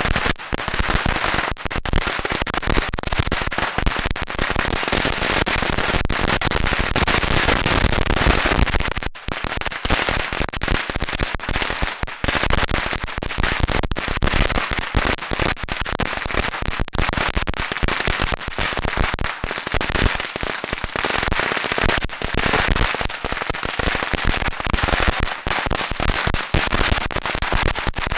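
A strip of about seven thousand Black Cat firecrackers going off in a continuous, rapid crackle of pops, with a brief lull about nine seconds in.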